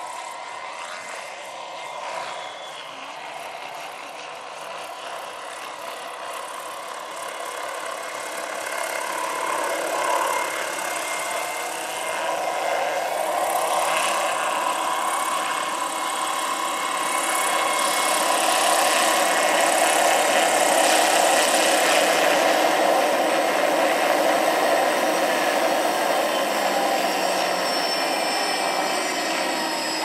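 Large electric RC scale helicopter (AH-1 Cobra model, 2.5 m rotor) flying: a steady whine of the electric drive and the swish of the rotor blades. It grows louder through the first half as the helicopter comes in low and close to hover and land, then stays steady.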